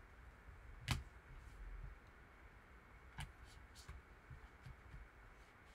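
Sharp clicks of plastic trading-card holders being handled and set down on a tabletop: one loud click about a second in, another about three seconds in, then a few fainter taps.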